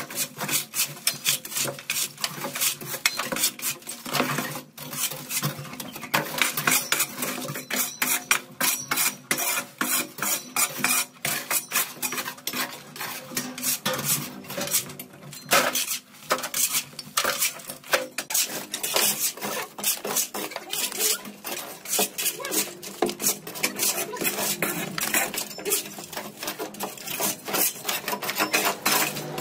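Rapid, irregular scraping and clinking, as of hand tools working through debris, going on almost without pause and broken by a couple of brief lulls early on.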